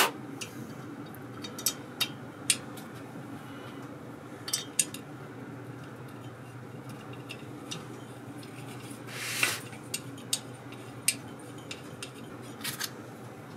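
Scattered light metallic clinks and taps from the cylinder and parts of a small air compressor pump being handled and fitted back over the piston, with a short scraping rustle about nine seconds in. A low steady hum runs underneath.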